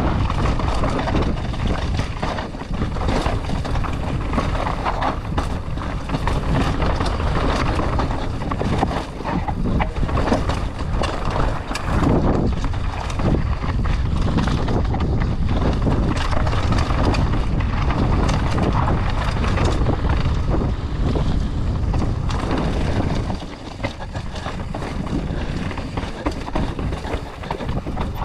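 Mountain bike descending a rough enduro trail at speed: heavy wind rush on the microphone over the crunch of tyres on dirt and rock, with frequent knocks and rattles from the bike.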